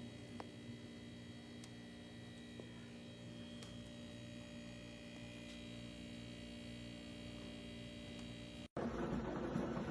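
Water cooler running with a steady electrical hum made of several held tones and a faint pulsing low tone. Near the end it cuts off sharply and a louder, rougher noise takes over.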